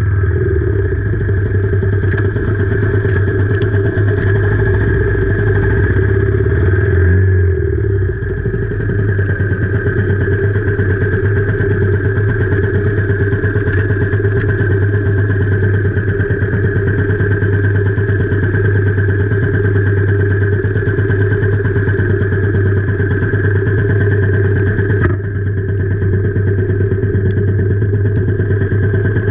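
Royal Enfield Meteor 350's single-cylinder engine idling steadily, with an even, unchanging beat.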